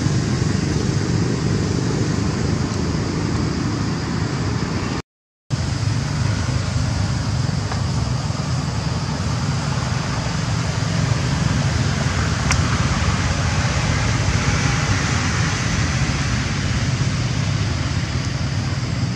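Steady low rumbling background noise, which cuts out to silence for about half a second about five seconds in.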